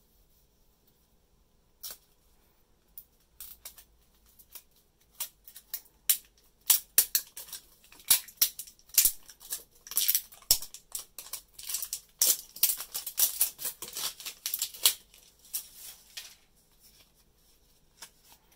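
Thin plastic wrap being peeled and torn off an L.O.L. Surprise toy ball, crinkling and crackling in quick irregular bursts. It starts sparse about two seconds in, grows dense in the middle and dies away near the end.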